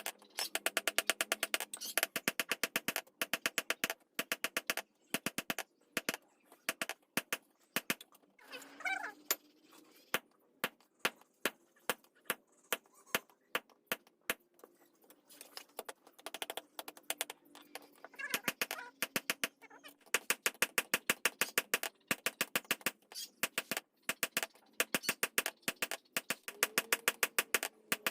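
Rapid, evenly spaced hammer blows on metal, several a second, as steel is forged. The blows thin out for a few seconds in the middle, then pick up again.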